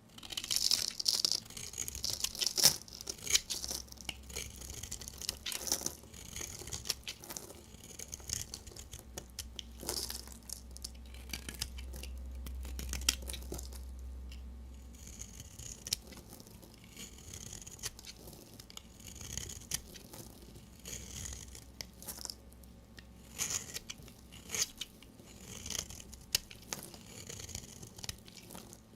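A blade cutting through bars of soap: a quick, irregular series of crisp cuts and scrapes, with a dull low rumble for a few seconds near the middle.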